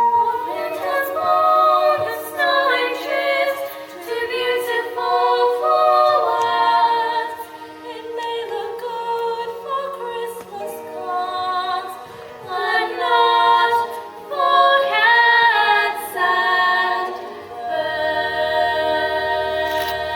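A choir singing a slow melody in harmony, with little or no accompaniment. Near the end a low steady note comes in under the voices.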